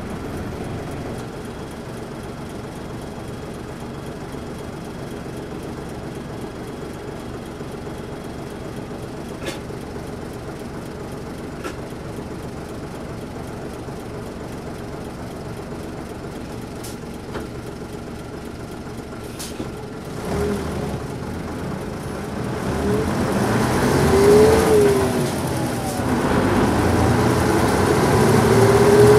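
1989 Nissan Diesel P-U33L city bus's diesel engine idling in neutral with a clatter, with a few light clicks, for about twenty seconds. Then the bus pulls away: the engine revs up, drops at a gear change about twenty-five seconds in, and climbs again in third gear near the end.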